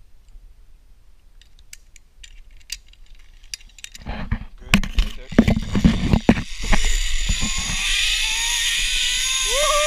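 Metal carabiners and a zipline trolley clicking and clanking as they are clipped onto a steel cable. Then the trolley's pulley runs along the cable with a steady whirring hiss and a faint whine that slowly rises in pitch as it picks up speed. A short tone rises and falls near the end.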